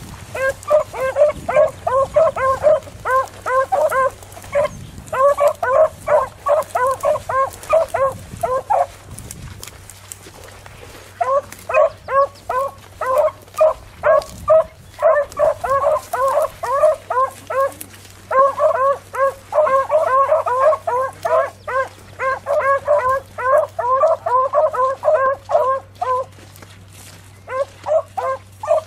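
Beagles baying in quick, short, repeated calls while running a rabbit's scent trail. The calls come in long runs, break off for about two seconds a third of the way through, resume, then thin to a few scattered calls near the end.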